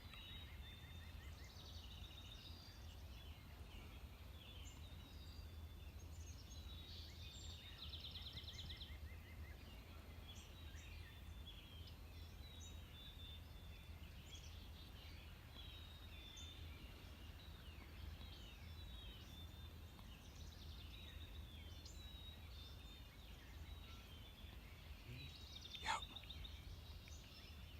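Faint chorus of songbirds chirping and trilling over a low steady rumble, with one faint sharp click near the end.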